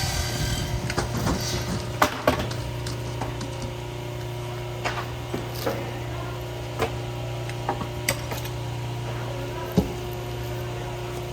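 Wood knocking and clattering as timber is handled, with about eight sharp knocks a second or so apart, the loudest near the start and near the end. Under them runs a steady low machine hum.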